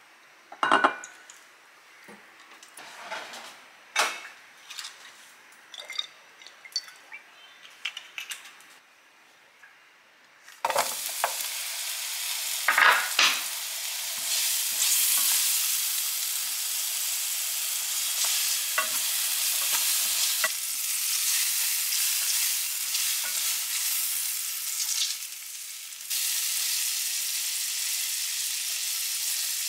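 A few clinks and knocks of sauce bottles being handled on a countertop, then a steady sizzle that starts suddenly about ten seconds in: sausage slices frying in oil in a stainless steel frying pan, with a spatula knocking and scraping against the pan as they are stirred.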